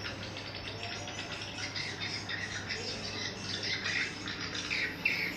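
Recorded swiftlet calls played back as a lure sound for a swiftlet house: a continuous stream of short, rapid chirps and twitters over a steady low hum.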